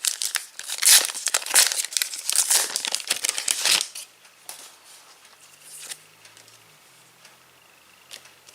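A Panini Adrenalyn XL trading-card pack wrapper being crinkled and torn open, a dense loud rustle for about four seconds, followed by a few soft handling sounds.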